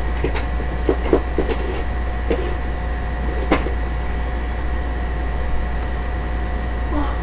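Steady low hum with a few light clicks and taps in the first few seconds. The sharpest click comes about three and a half seconds in.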